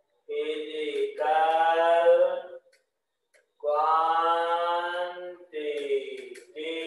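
A voice singing or chanting in long held notes, in three or four phrases with short breaths between them.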